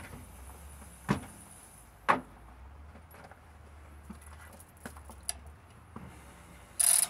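Two sharp knocks about a second apart, the second the louder, then a few fainter taps. Near the end comes a short burst of rustling as clothing brushes the microphone.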